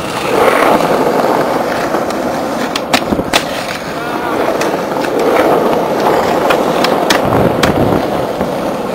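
Skateboard wheels rolling over rough asphalt, a steady rumble, with a few sharp clicks and knocks along the way as the skater pushes.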